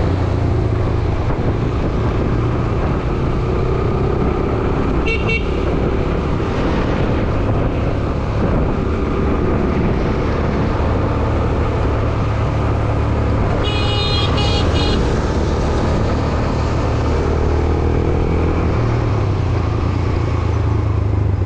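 Motorcycle engine running steadily in road traffic, with the rush of the ride around it. A vehicle horn gives a short toot about five seconds in and a longer, high-pitched honk of about a second around fourteen seconds in.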